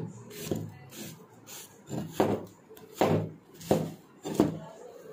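Meat cleaver chopping through an apple and striking a wooden tabletop: a series of sharp chops. A few lighter ones come first, then four heavier ones about three-quarters of a second apart.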